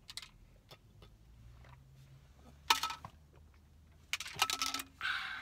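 Scattered small clicks and taps of plastic shaker bottles being handled while drinking, over a faint low hum. There is a louder clack about three seconds in and a quick run of clicks near the end.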